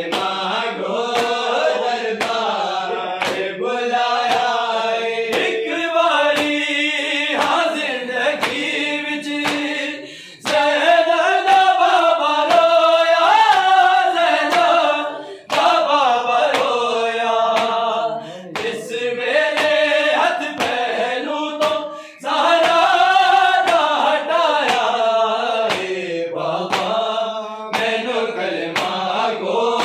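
Group of men singing a Punjabi devotional chant with no instruments, in long phrases with brief breaths between them. Sharp strikes at a regular pace keep the beat under the voices.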